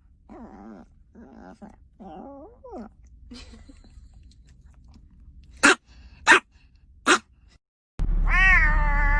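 A cat meowing: a few short, quiet wavering meows at first, then a loud, long drawn-out meow near the end. Three sharp clicks come around the middle.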